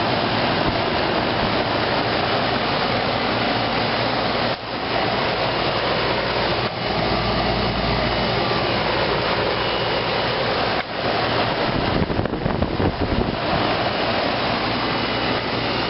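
A 1993 Carrier central air conditioner condensing unit running: a steady rush of air from the condenser fan over a steady low hum from the compressor.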